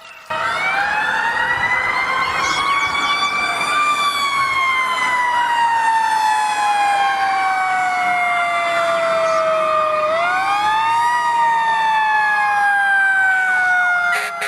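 A wailing siren sounding as a wake-up alarm. It comes in suddenly, rises in pitch for a few seconds, then falls slowly, rising again about ten seconds in and falling once more.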